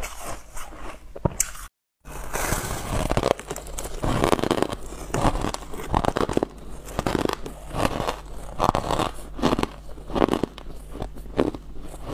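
A person biting and chewing a slab of white, snow-like frost ice close to a clip-on microphone: loud, crisp crunches about once a second. The sound drops out briefly a little under two seconds in, then the crunching resumes.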